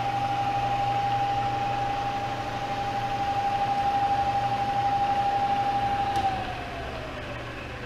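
Bridgeport vertical mill's variable-speed spindle head running with a steady high whine over a low hum. About six seconds in it is switched off, and the whine falls in pitch as the spindle coasts down.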